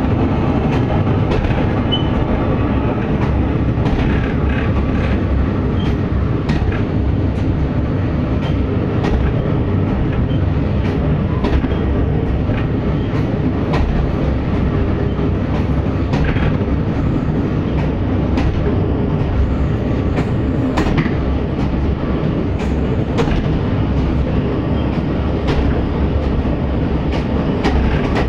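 MÁV Bzmot two-axle diesel railcar running along the line, heard from an open window: a steady drone of engine and wheels on rail, with scattered sharp clicks of the wheels over the track.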